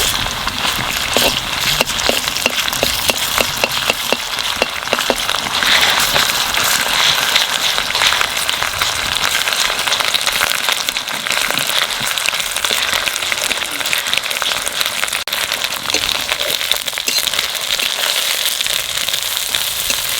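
Onions and freshly added ginger paste sizzling and crackling in hot oil in a kadai, a dense steady spitting. A run of sharp clicks in the first few seconds.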